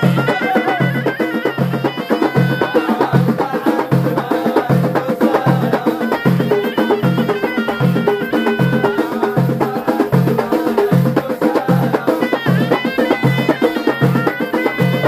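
Traditional Amazigh folk music: a reedy ghaita (shawm) melody over hand frame drums beating a steady pulse of about one and a half beats a second.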